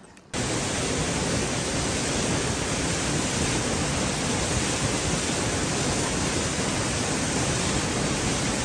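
Waterfall pouring down a rock face and splashing onto the rocks close by: a loud, steady rush of water that cuts in suddenly just after the start.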